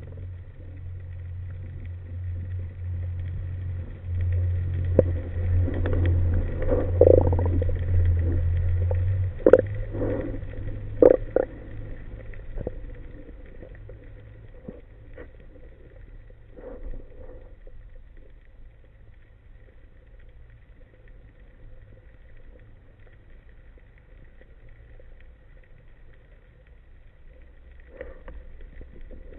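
Underwater sound of a freediver moving over the seabed: a low rumble of water that dies down after about nine seconds, with a few sharp knocks and clicks in the middle, then a quieter steady underwater hiss.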